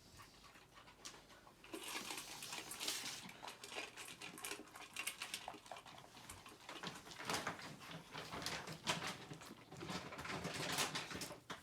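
A puppy eating dry kibble from a bowl: quick, irregular crunching and clicking, starting about two seconds in.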